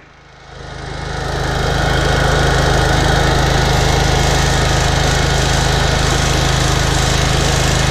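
A small engine running steadily, fading in over the first two seconds.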